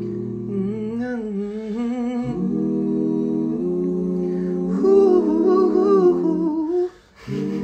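Multitracked a cappella vocal harmonies: several recorded layers of a man's voice held together as chords, with a wavering lead line on top, played back from the recording. The playback cuts out briefly near the end and then starts again.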